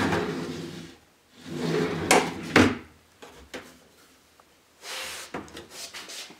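Wooden cabinet drawer sliding out and being pushed back in, wood rubbing on wood, closing with two sharp knocks. Then softer rubbing and light clicks as a wooden cabinet door is swung open.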